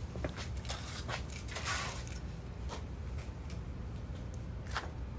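Quick footsteps and scuffs on a paved patio, with a few light clicks and one longer scrape, over a steady low outdoor hum.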